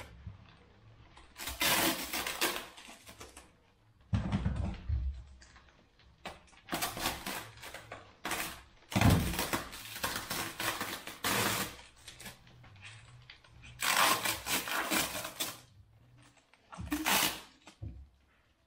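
Plastic wrap and foam protectors being pulled and torn off a bicycle frame: irregular bursts of crinkling and rustling, with a couple of dull knocks as the wrapped frame is handled.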